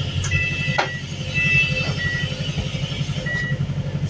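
Engine of a Wright New Bus for London double-decker running, heard from on board as a rapid, even low throb. Short, steady high whistles come and go over it, with a few sharp clicks.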